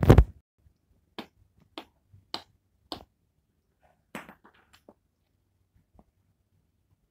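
A loud knock at the start, then four short, sharp taps about half a second apart and a few fainter taps later: wooden toy blocks and a small homemade lamp figure knocking on a hard polished floor as they are moved by hand.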